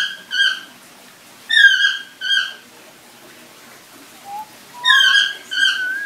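Parrot calling: three pairs of short, loud, slightly falling calls, with a short rising note just before the last pair.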